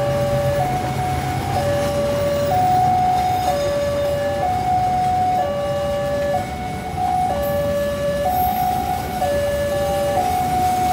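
Railway level-crossing warning alarm, two tones alternating high and low about once a second, sounding for an approaching train, over a low rumble of waiting traffic.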